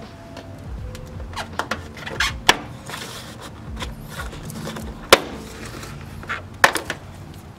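Plastic door sill trim of an Acura RSX being pried up from the rocker, its retaining clips letting go with a series of sharp snaps; the three loudest come about two and a half, five and nearly seven seconds in.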